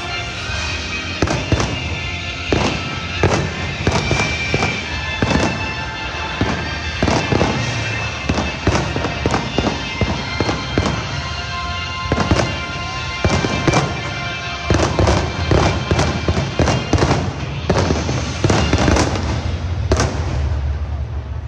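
Fireworks bursting in quick, irregular succession, dozens of bangs and crackles, over music playing throughout; the bangs thin out and the sound fades over the last second or so.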